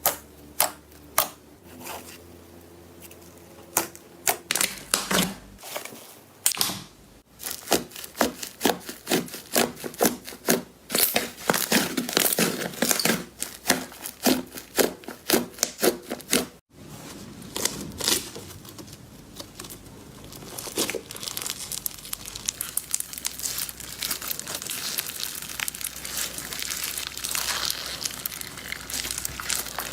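Slime being squished and pulled by hand: a run of sharp, sticky pops and clicks, sparse at first and then fast and thick. After a sudden break about 17 seconds in, it turns into a steady, dense crackling.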